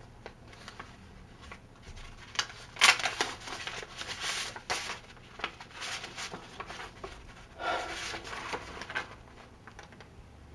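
Paper envelope being torn open and the letter pulled out and unfolded, in a string of rustling, crinkling paper sounds, the sharpest about three seconds in.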